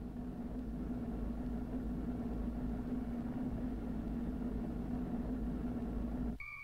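A motor vehicle's engine running at a steady pitch, a low even drone. Near the end it cuts off abruptly and a steady high electronic tone takes over.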